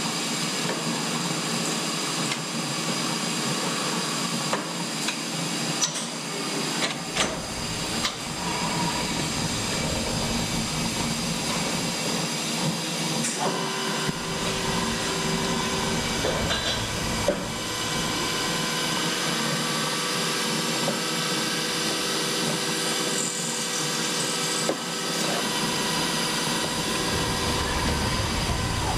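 A Hitachi Seiki Super HiCell 250 CNC turning and milling centre running: a steady machine hum with several held tones and a few sharp clicks.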